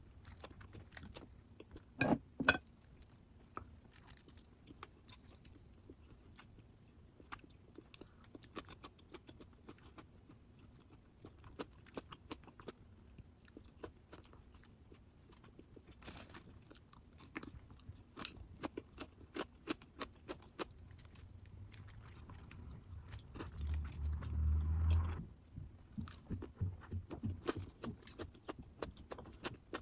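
A person eating a home meal of samgyetang and crunchy fresh geotjeori: chewing and crunchy bites, with many small clicks. There are two sharp knocks about two seconds in, and a low rumble lasting about a second and a half roughly three-quarters of the way through.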